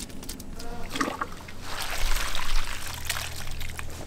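Liquid pouring and splashing in a large soup pot, a rushing sound that is strongest from about two to three seconds in.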